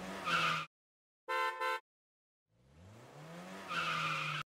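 Cartoon car sound effects: a brief engine rev, a double horn beep about a second and a half in, then an engine revving up, rising in pitch, and cutting off abruptly near the end.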